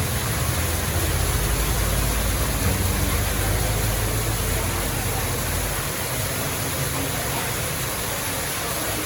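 Steady rushing noise with a low rumble underneath; the rumble eases about six seconds in.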